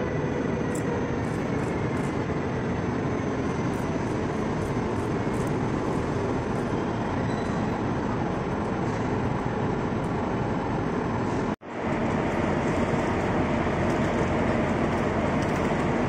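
Electric locomotive-hauled passenger train rolling into a platform, a steady rumble of wheels and running gear. The sound cuts out for an instant about eleven and a half seconds in, then the same rumble resumes.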